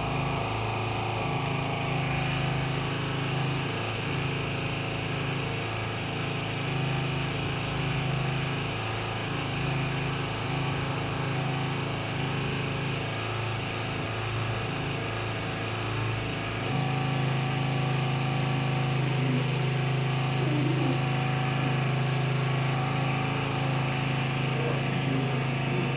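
Steady low mechanical hum of a running motor or engine, with a slight change in its tone about two-thirds of the way through.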